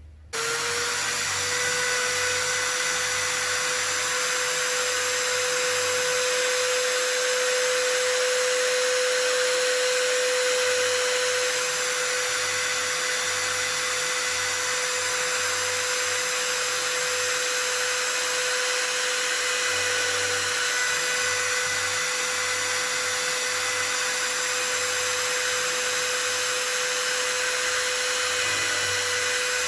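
Electric drill spinning up and running at a steady speed throughout, drilling wide holes partway into a wooden plank to countersink screw heads.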